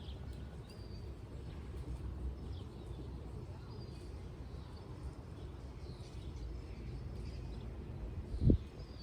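Scattered faint bird chirps over a steady low rumble outdoors, with one sharp thump near the end.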